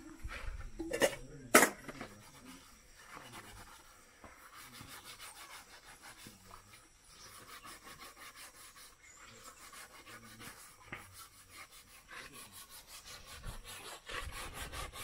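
Metal dish basin being scrubbed by hand, a fast, steady back-and-forth rubbing and scraping. Two sharp metallic clinks come about one and one and a half seconds in.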